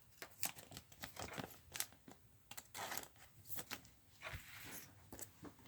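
Faint rustling and crinkling of trading cards and paper-plastic booster-pack wrappers being handled, in short scattered bursts with small clicks.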